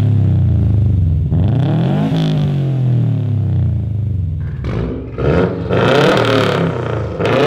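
2015 Subaru WRX STi's turbocharged 2.5 L flat-four revved through an Invidia N1 stainless-steel catback with a single 3-inch exit. The pitch climbs for about two seconds and then falls away. From about four and a half seconds in come a few shorter, sharper blips with a crackly edge.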